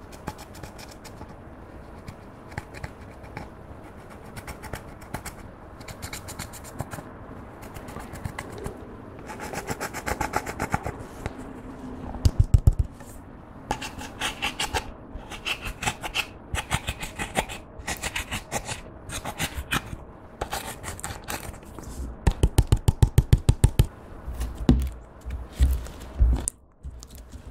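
Plastic stick scraping and crumbling pressed eyeshadow in a plastic palette: a long run of quick, dry scratching strokes. Twice there is a brief spell of rapid, harder knocks.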